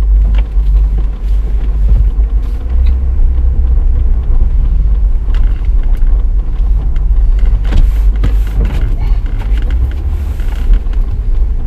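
Cadillac CTS heard from inside the cabin as it moves off: a steady low engine and road rumble, with a few light knocks.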